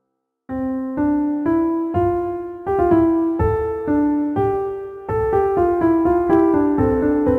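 Background piano music: after a brief silence, a new piece begins about half a second in, a slow melody of struck notes, each one fading, over lower chords.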